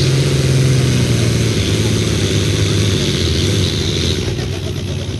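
Pulling tractor's diesel engine running hard at high revs under full load as it drags the weight sled down the track, a steady loud engine note that eases slightly near the end.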